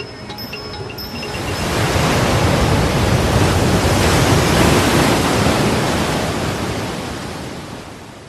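A steady rushing noise like wind or surf swells up over about two seconds, holds, then slowly fades away near the end. Plucked string notes die out as it begins.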